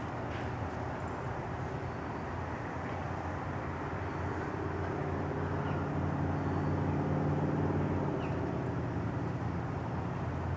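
A steady engine drone, growing louder about five seconds in and easing slightly after eight seconds.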